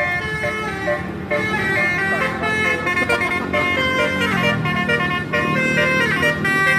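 Telolet basuri musical bus horns playing a quick melody: several horn tones sound together and change pitch in quick steps, over a low engine rumble.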